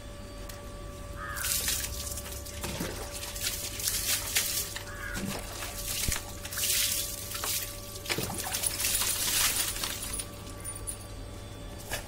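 Water poured over a dog's wet coat, splashing onto a concrete floor in several separate pours of a second or two each, as the dog is rinsed during its bath.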